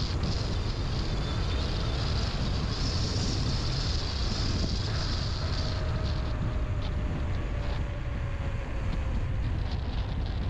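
Wind rumbling over the camera microphone of a moving mountain bike, with tyre and drivetrain noise. A steady high hiss stops about six seconds in, followed by scattered light clicks and rattles.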